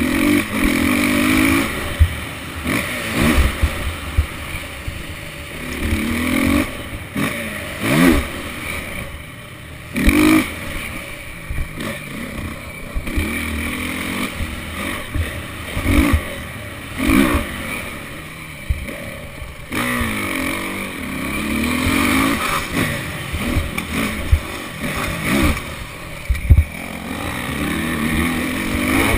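Motocross dirt bike ridden hard, heard from on board: the engine revs up and falls away again and again with throttle and gear changes. Sharp knocks are scattered through it.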